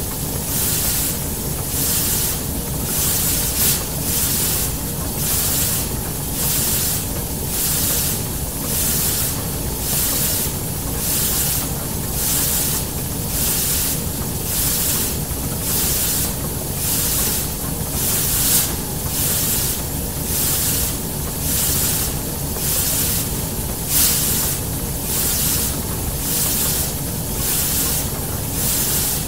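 Steam-machine sound effects: rhythmic hissing bursts of steam, about one a second, over a continuous low mechanical rumble, in time with pumping pistons.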